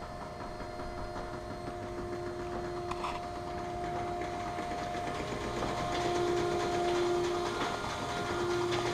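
Large hangar door being raised, its drive motor running with a steady hum over a low rumble, growing louder and stopping at the end.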